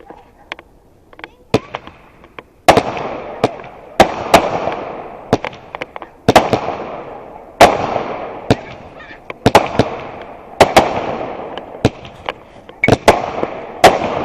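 Fireworks going off: a few small pops, then from about three seconds in a run of loud bangs roughly one a second, each trailing off in a fading hiss, with smaller pops between them.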